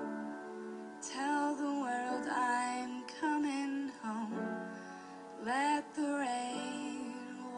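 Pop song: a woman sings a slow, held chorus melody over steady sustained instrumental chords.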